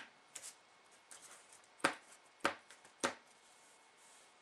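Sharp taps and clicks of a paintbrush against a small eyeshadow compact as the broken powder is pushed back into its pan. There is a light tap near the start, then three clear clicks a little over half a second apart in the second half.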